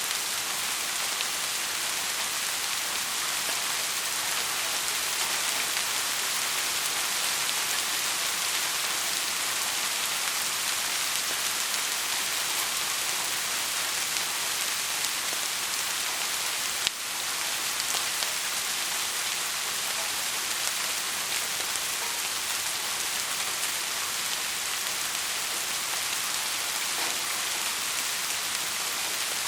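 Heavy rain falling steadily, an even hiss of countless drops. There is one sharp click a little past halfway.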